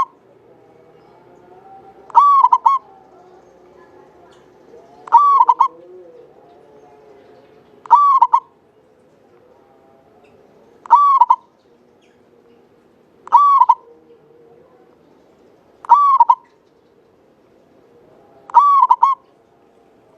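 Local Javanese zebra dove (perkutut) cooing: seven short, clear phrases, one every two and a half to three seconds.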